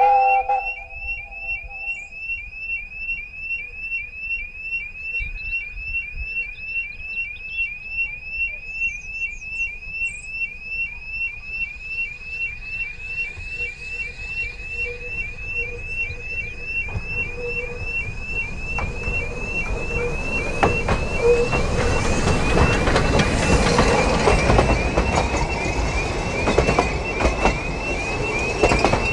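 Level crossing warning alarm sounding a short rising electronic chirp about twice a second. From about two-thirds in, a narrow-gauge steam train, the Double Fairlie locomotive David Lloyd George, approaches, getting louder, and its carriages rumble past near the end.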